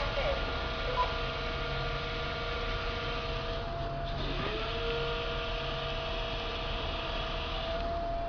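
Electric motors of a CAT 6000 lb electric forklift giving a steady whine made of several held tones. About three and a half seconds in, one tone cuts out, then rises back to pitch as the motor spins up again.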